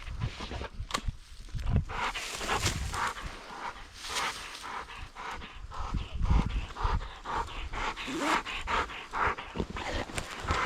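Hunting dog panting hard after a retrieve, a rapid, even run of short breaths.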